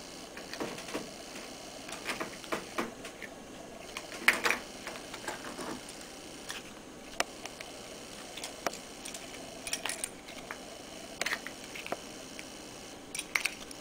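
Scattered clicks and light knocks from an EasyClick battery terminal connector and its covers being handled and snapped by hand. The loudest knock comes about four seconds in, with a small cluster of clicks near the end.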